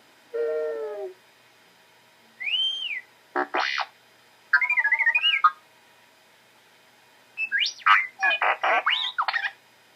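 R2-D2 droid sound effects: a string of electronic beeps, whistles and warbling trills in short separate bursts. A rapid chatter of beeps and pitch sweeps comes near the end and is the loudest part.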